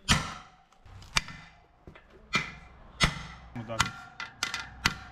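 Hammer blows on a dented aluminium spoked motorcycle rim, the dents being beaten back into shape. About seven sharp, ringing strikes, unevenly spaced and coming faster towards the end, the first the loudest.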